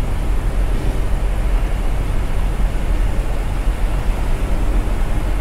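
Steady engine and road noise of a vehicle being driven at highway speed, about 90 km/h.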